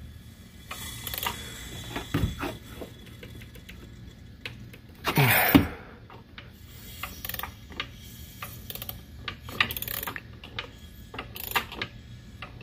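GY6 125cc single-cylinder four-stroke engine being turned over by hand with a socket wrench, valve cover off: clicks and ticks from the wrench and valve train, with a few short bursts of hissing, the strongest about five seconds in. The hiss is compression leaking off past the valve seats, a sign the valves are not sealing.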